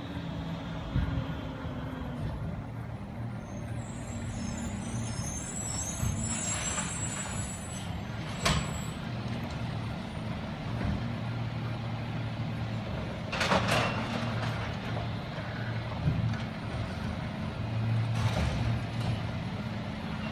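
Peterbilt 320 garbage truck's diesel engine running low and steady, with several sharp air-brake hisses: a short one about eight seconds in and a longer one about halfway through.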